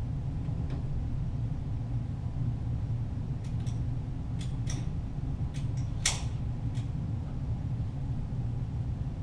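A ragged string of sharp cracks from .22 Walther GSP target pistols, heard from down by the target, most between about three and seven seconds in, the loudest about six seconds in. Under it runs a steady low hum.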